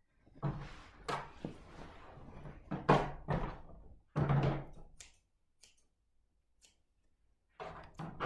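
Shiny lining fabric from a jacket rustling and swishing as it is shaken out and spread across a table, with dull thumps of hands and cloth on the tabletop. It comes in four short bursts, the loudest about three and four seconds in.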